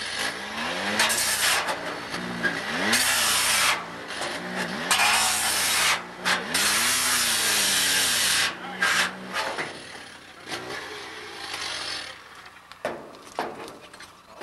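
Gas-powered rescue saw cutting through a car's roof posts: the engine revs up and down again and again, with loud stretches of blade grinding through metal. The saw stops about ten seconds in, and a few sharp knocks follow near the end.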